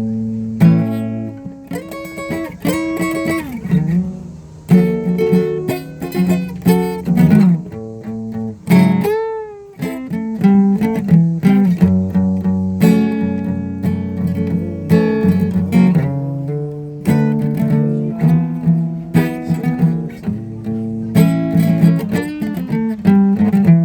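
Guitar music: plucked and strummed notes and chords, with a note bent in pitch about nine seconds in.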